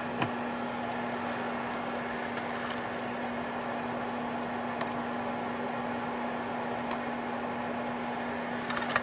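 A steady low hum with a faint hiss over it, broken by a few light clicks.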